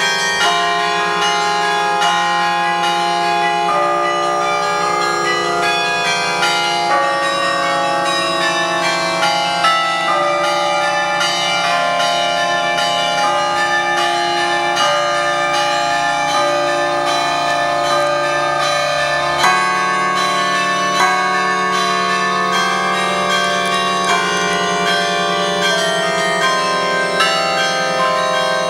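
A 62-bell carillon playing a tune, its bells struck one after another in quick succession, each note ringing on and overlapping the next.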